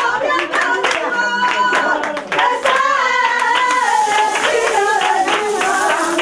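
Wedding guests clapping in rhythm while voices sing along, with a few voices talking over them.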